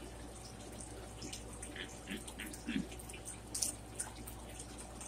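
Close-up chewing and lip-smacking of a mouthful of flatbread and oven-baked chicken, a run of small irregular wet clicks.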